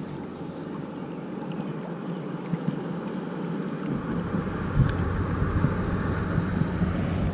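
Flowing river water around a wading angler, with wind rumbling on the microphone from about four seconds in and a single small click near five seconds.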